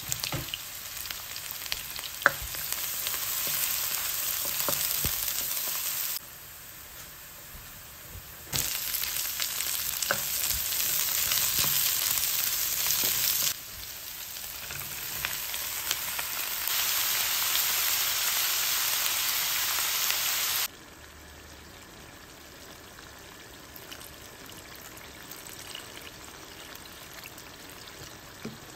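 Chopped garlic, then onion and pork, sizzling in hot oil in a wok, in short clips that cut in and out suddenly, with a few sharp clicks. The sizzle drops to a much quieter level about two-thirds of the way through.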